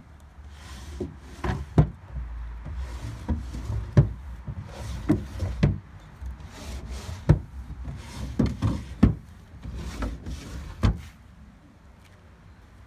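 Wooden dresser drawers being pulled open and pushed shut: wood sliding on wood between a series of sharp knocks as the drawers hit home.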